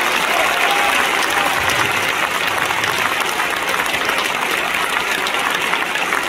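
Stadium crowd applauding: dense, steady clapping that eases off slightly toward the end.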